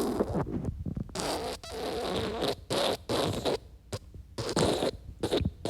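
Pooping sound effect: a person defecating and passing gas, in a string of irregular sputtering bursts that stop and start many times.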